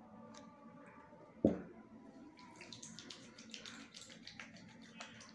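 Faint handling sounds: a single sharp tap about a second and a half in, then soft, wet crackling as aloe vera gel is rubbed between the palms.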